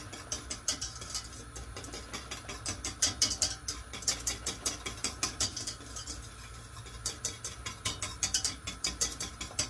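Wire whisk stirring gravy in a stainless steel saucepan, its tines clicking and scraping rapidly against the pan in spells.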